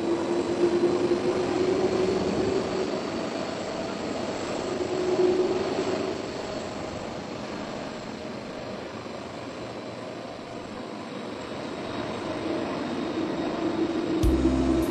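Jet airliner engines running, a steady rushing with a faint high whine that swells twice and then eases off before building again. A low musical beat comes in near the end.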